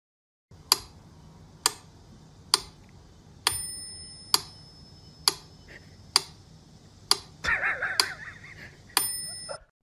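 Mechanical metronome ticking steadily, a little faster than once a second, with a bell-like ring on two of the ticks. A brief scratchy noise comes about three-quarters of the way through.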